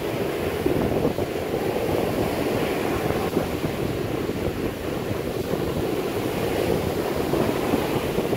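Strong ocean surf: waves breaking and foaming up the sand in a steady rush.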